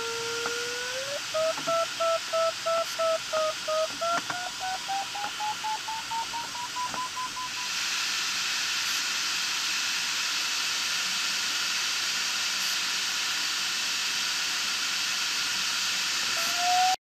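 Glider variometer audio: a steady tone turns about a second in into quick beeps that climb steadily in pitch, the sign of the glider climbing in lift. After about eight seconds the beeping stops and a steady airflow hiss fills the cockpit, with a rising tone coming in again at the very end.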